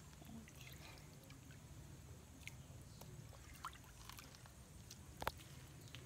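Very quiet ambience: faint small water drips and splashes over a low steady hum, with scattered light ticks and one sharper click about five seconds in.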